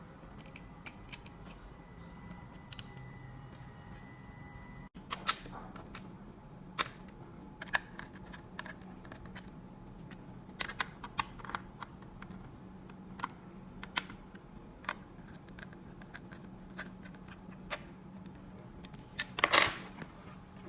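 Scattered light clicks and taps of screws and metal fittings being handled and fastened during trolley assembly, with a louder clatter about a second before the end. A faint steady hum sits beneath.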